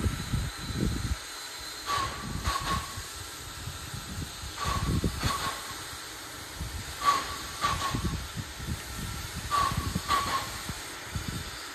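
Small steam tank locomotive starting off slowly with its cylinder drain cocks open: hissing steam beats that come in pairs about every two and a half seconds.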